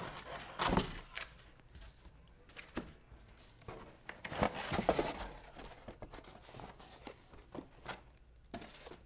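Cardboard box flaps and packaging rustling and scraping as items are lifted out of a shipping box, with louder scrapes and knocks about a second in and again around the middle.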